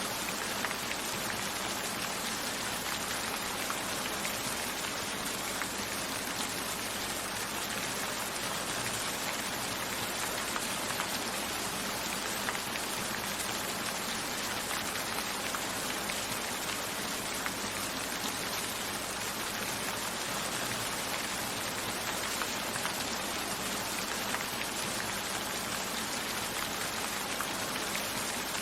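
Steady rain: an even hiss of many fine drops, unbroken and without thunder.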